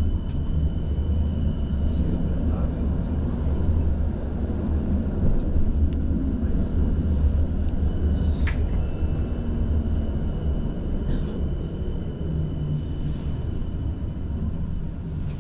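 Tram running on its rails, heard from inside the car: a steady low rumble with scattered clicks and knocks and a thin high whine, and a sharp click about eight and a half seconds in.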